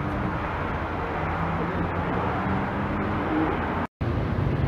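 Steady street ambience of road traffic with faint distant voices. The sound cuts out for a moment near the end, at an edit.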